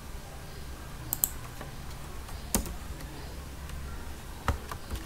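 A handful of separate keystrokes on a computer keyboard, sparse and irregular, including a quick double tap, over a low steady hum.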